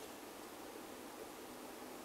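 Faint steady hiss of background noise, with no distinct handling sound.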